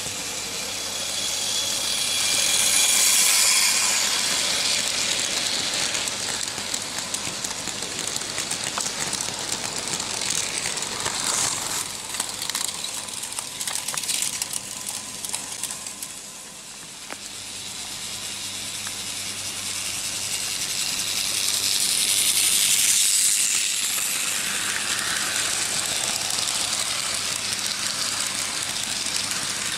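Märklin H0 model trains running on metal M-track: a steady metallic rattle and whirr of wheels and motors with fine clicks, swelling as a train passes close about three seconds in and again about twenty seconds later.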